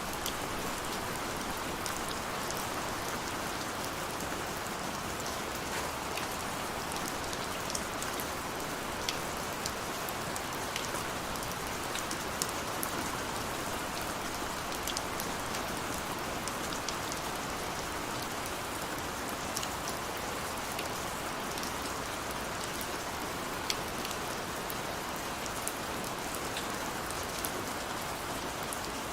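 Steady rain falling, an even hiss with many individual drops ticking sharply and irregularly on nearby surfaces.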